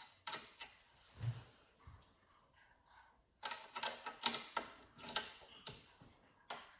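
Scattered clicks and light knocks of a PC case's side panel being handled and fitted back onto its hinges, with a quick run of them in the middle.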